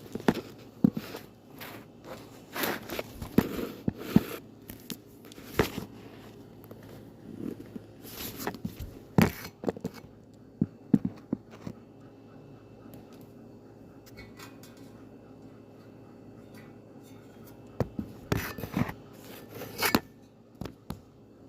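Irregular clicks, taps and scrapes of small objects being handled, bunched in the first few seconds, again around the middle, and in a short cluster near the end.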